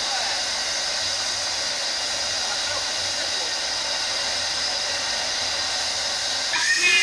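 Steady, loud hiss of escaping steam from the Ffestiniog Railway double Fairlie locomotive Merddin Emrys. About half a second before the end, its steam whistle sounds: a short shriek that rises and then holds.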